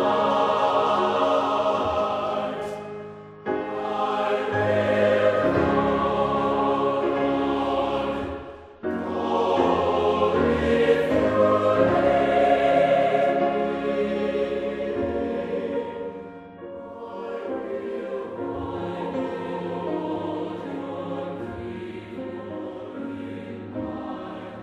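Background choral music: a choir singing held chords, with brief pauses between phrases about three and a half and nine seconds in, and softer singing in the later part.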